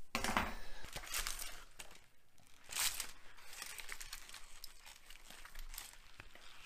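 Aluminium foil crinkling and rustling as hands in gloves open and handle the foil wrapped around a smoked lamb shoulder, with a loud burst in the first second and again about three seconds in, then softer crackling.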